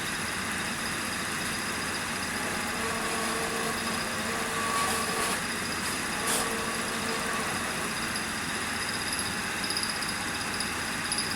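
Spindle motor of a KANTO PM-3477 pantograph engraving machine running steadily, with a brief tick about six seconds in.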